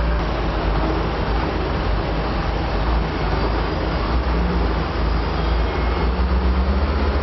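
Heavy diesel engines of road construction machinery running, a deep low rumble that settles into a regular throb near the end.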